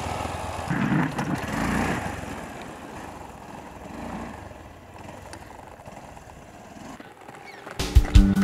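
Off-road motorcycle riding away on a loose dirt trail. Its engine is loudest in the first couple of seconds, then fades as it goes into the distance. Music comes back in loudly near the end.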